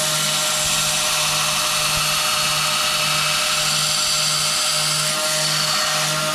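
An electric power tool running steadily under load: a constant motor hum with a steady high hiss, and a low throb pulsing about twice a second in the second half.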